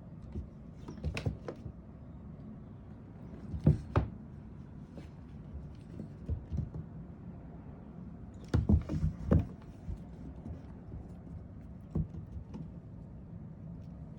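Kittens playing, with scattered thumps and knocks of paws and bodies landing and bumping: a cluster about a second in, two near four seconds, a run around nine seconds and one more near twelve, over a low steady background hum.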